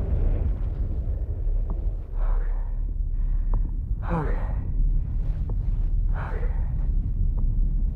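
Three heavy breaths from a man, about two seconds apart, over a steady deep low rumble: the approaching giant sandworm in the film's sound design.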